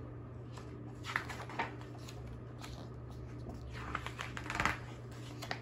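Pages of a paperback picture book being turned: two papery rustles, about a second in and again around four seconds in, over a low steady hum.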